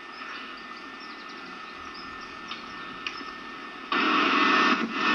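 Faint steady hiss, then about four seconds in a much louder rushing noise cuts in abruptly and holds.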